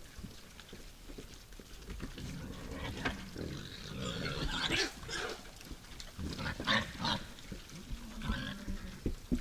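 Wild boars grunting at close range, with short low calls coming in groups, mixed with scattered clicks and rustling as they move and feed.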